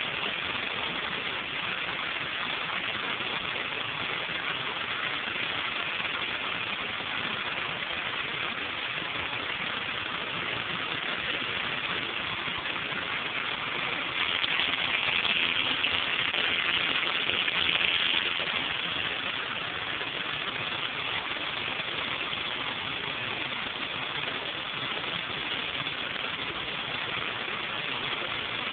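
Pressure washer running, its turbo nozzle's water jet hissing steadily on a concrete sidewalk over the machine's engine. The spray gets louder for about four seconds around the middle.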